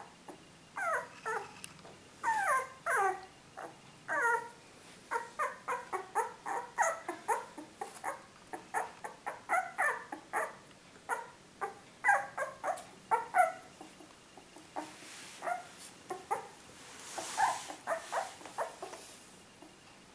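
Three-week-old puppy whining and yelping in a fast run of short, high cries, many dropping in pitch. The cries thin out after about 13 seconds, and a brief hiss comes near the end.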